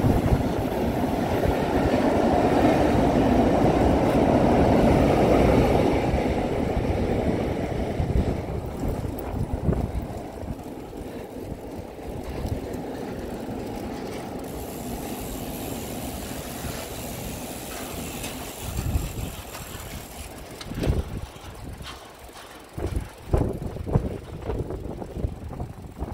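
Rumble of a vehicle passing on the bridge, loudest in the first six seconds and then fading to a lower steady noise. Toward the end, irregular low thumps of wind buffeting the microphone.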